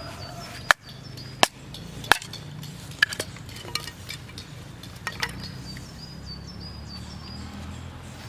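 Sharp striking blows of a camp tool, three loud knocks about 0.7 s apart, then lighter, scattered knocks.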